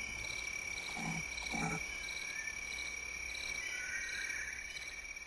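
A chorus of calling animals: a steady high trill runs throughout, with a shorter chirp repeating about twice a second above it. Two short, low calls come about a second in and again half a second later.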